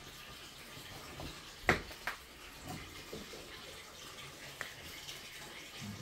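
Water running steadily from a tap left on, filling a bath. Two sharp knocks about two seconds in, and a smaller click later.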